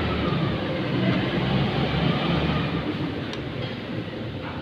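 A steady, noisy mechanical rumble with a low hum underneath, easing off over the last couple of seconds.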